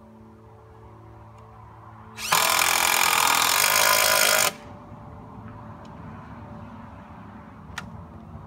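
Cordless drill driving a screw through a 2x4 into a wooden post, one run of about two seconds that starts about two seconds in and stops abruptly.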